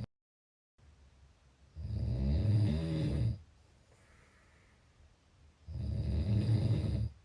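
A person snoring: two low snores about four seconds apart, each lasting about a second and a half, with soft breathing between them.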